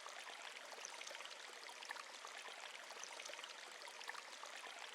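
Faint running water of a stream, a steady babble with small splashes and trickles scattered through it.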